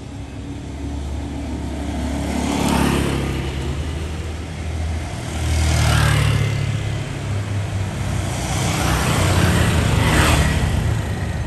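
Motor vehicles passing by one after another, three in turn, each growing louder and then fading away.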